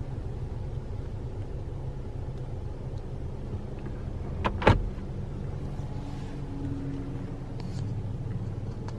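Steady low hum inside a parked car's cabin with the car running, and a sharp double latch click about halfway through.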